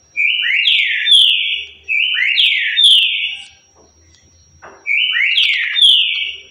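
Green-winged saltator (trinca-ferro) singing the 'currucutil' song type: three repeated whistled phrases, each a short opening note followed by loud swooping, slurred notes.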